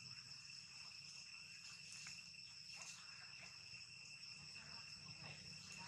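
Faint, steady chorus of insects: a constant high-pitched drone in two or three tones, with a few faint rustles.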